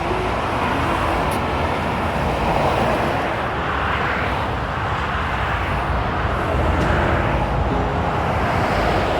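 Trucks passing on a motorway at speed: a continuous rush of tyre and engine noise that swells as each one goes by, loudest about three seconds in and again about seven seconds in.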